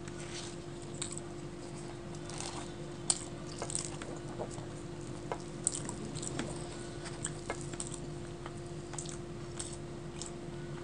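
Close-miked wet eating sounds: chewing and mouth clicks, then fingers tearing a luchi (puffed fried flatbread) and squishing it into curry on the plate. Scattered sharp clicks throughout, two of them louder, about three and five and a half seconds in.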